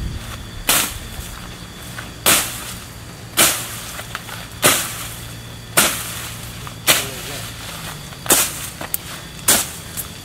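A hoe swung down into weeds and brush, about eight sharp slashing strikes spaced roughly a second apart, clearing a path through the undergrowth.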